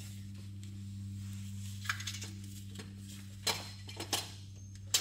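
Hand tools and metal parts clinking and knocking in an engine bay as a starter motor is worked loose: a few sharp clinks, about four, in the second half, over a steady low hum.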